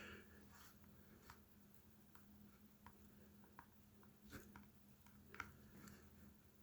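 Near silence: quiet room tone with a low hum and a few faint, scattered clicks.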